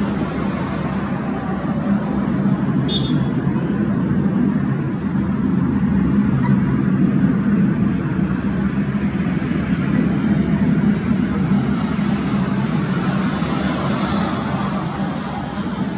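MiG-29 jet engines running with a deep roar and a high whistle; the whistle swells loudest about three-quarters of the way through, then eases.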